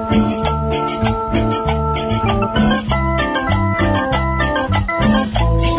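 Cumbia music led by electronic organ or keyboard chords over a pulsing bass line, with steady percussion keeping the beat.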